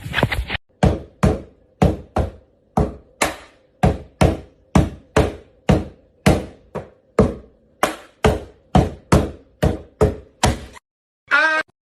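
A long series of about twenty sharp whacks, roughly two a second, each ringing away briefly. Near the end comes a short high-pitched squeal.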